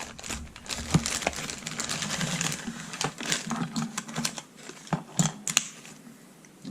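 A plastic packet of electrical wiring being opened and handled: packaging rustling, with quick light clicks and taps, busy at first and thinning out to a few clicks near the end.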